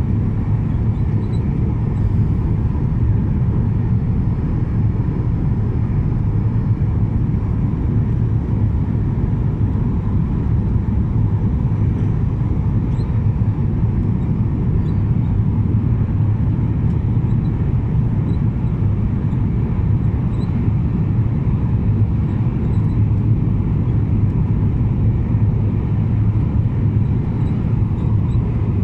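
Steady low drone of jet engines and rushing air inside the cabin of a Skymark Boeing 737-800 airliner on final approach.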